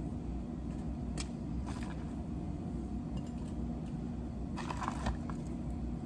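Lettuce leaves being torn and snapped apart by hand: a few short, crisp crackles, the loudest cluster about five seconds in, over a steady low background hum.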